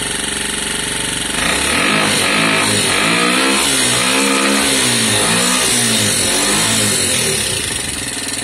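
Lexmoto Valiant motorcycle engine with a converted carburettor, running and then blipped up and down several times on the throttle from about a second and a half in, before dropping back toward idle near the end.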